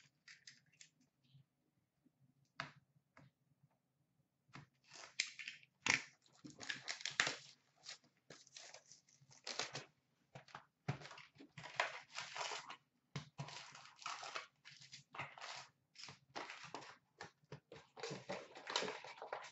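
Hockey card pack wrappers being torn open and crinkled, with the cards handled and shuffled. A few light clicks at first, then irregular crinkling and rustling from about four seconds in.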